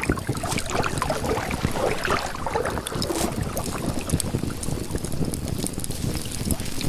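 Outdoor water ambience: water sloshing and splashing, with wind rumbling on the microphone.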